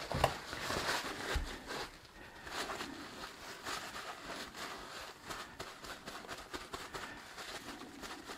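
Light rustling and small scattered taps of hands coating a block of cheese with chipotle chilli powder, with one soft low thump about a second and a half in.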